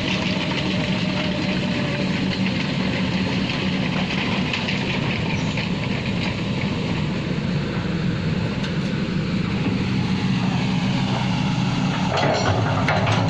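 Backhoe loader's diesel engine running steadily, with a few sharp metallic knocks near the end.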